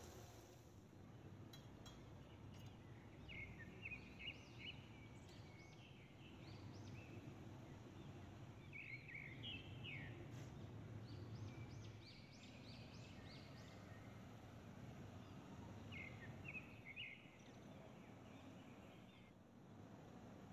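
Near silence: a faint steady background with a few groups of short, high bird chirps.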